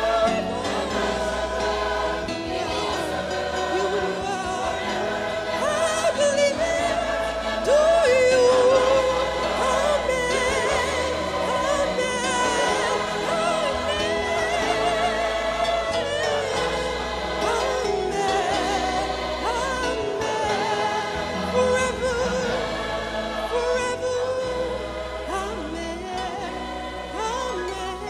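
Large mixed choir singing a slow hymn in harmony, holding long notes on the words 'forever and ever' and 'Amen', over sustained low bass notes.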